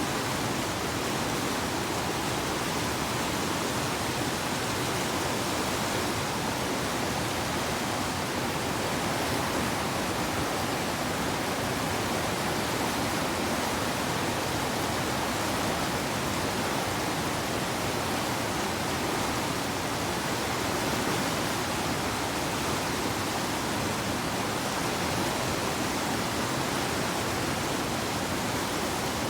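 Steady rush of river rapids: whitewater running with an even, unbroken hiss.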